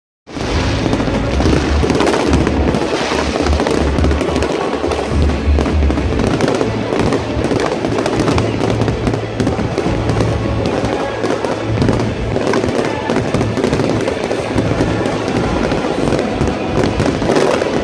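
Fireworks display: continuous bursting and crackling shells, with music playing throughout.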